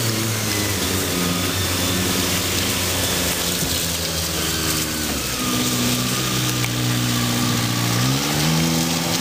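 Gritting truck's engine running as it drives off, its hum rising in pitch about eight seconds in as it speeds up, over a steady hiss.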